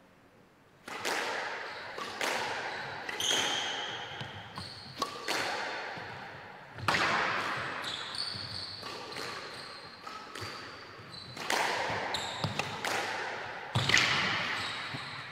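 Squash rally: sharp cracks of racquets striking the ball and the ball hitting the walls, about one a second, each ringing briefly in the enclosed court, starting about a second in. Short high squeaks of shoes on the wooden court floor sound between the strikes.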